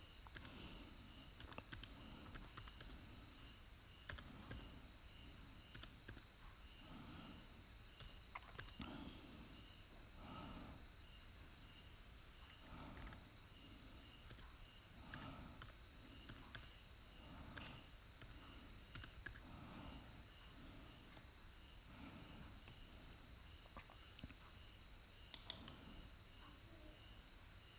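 Very quiet background: a steady hiss with a faint high chirp repeating about twice a second, and a few soft clicks, the clearest pair near the end.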